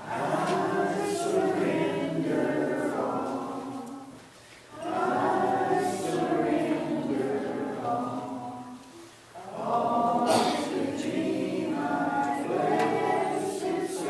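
A congregation singing a hymn together, in three sung lines with a brief pause for breath between each.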